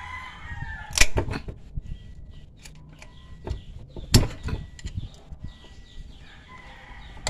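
Metal clinks and knocks from hand work on a car air-conditioning compressor's magnetic clutch, as the clutch plate is handled at the pulley; two sharp knocks stand out, about a second in and about four seconds in, with lighter clicks between.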